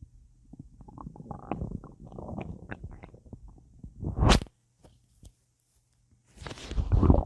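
Stomach gurgling and rumbling from a belly full of gas after a big meal and a drink. Irregular bubbly gurgles are followed by a loud surge about four seconds in, a short lull, and another loud gurgling run near the end.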